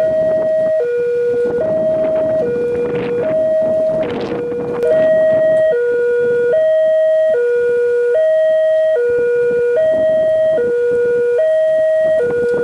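Indonesian railway level-crossing warning alarm sounding, two electronic tones, one low and one higher, alternating with each held just under a second, signalling that a train is approaching. A rush of noise rises and fades about two to five seconds in.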